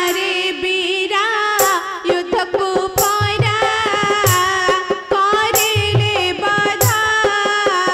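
Live Indian folk-theatre music: an ornamented, wavering melody over a steady held drone note, with hand-drum strokes and a bright percussive clash about every second and a half.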